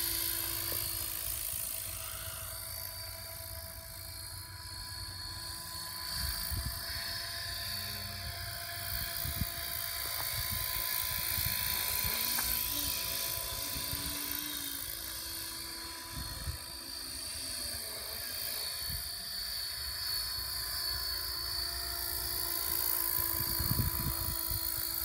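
Radio-controlled scale model Gazelle helicopter on T-Rex 600 mechanics in flight: a steady high whine from its rotor and drivetrain that slowly swells and fades as it moves around, with occasional low rumbles underneath.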